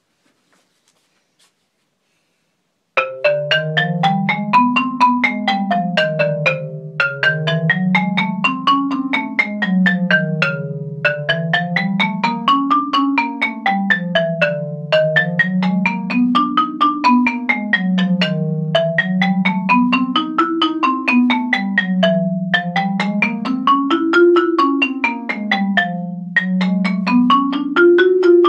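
Marimba played with mallets in rapid rising-and-falling arpeggios, starting about three seconds in. The pattern repeats about every four seconds, each time starting a little higher.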